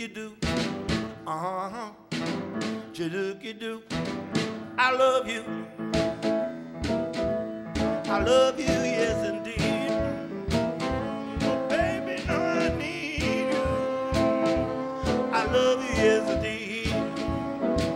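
Blues band instrumental break: a saxophone plays a wavering lead line with vibrato over piano chords and a steady drum-kit beat with cymbal strikes.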